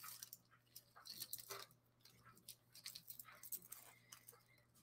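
Near silence with faint, scattered clicks and rustles of jewelry pieces and their packaging being handled, in two short clusters about a second in and again around three seconds in.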